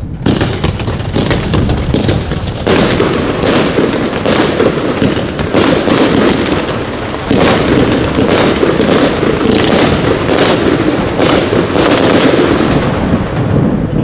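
Pyroland Hairforce One, a 64-shot 30 mm gold compound firework battery, firing: a rapid string of shots, about two a second, over a continuous loud rush of noise from the bursting gold willow shells.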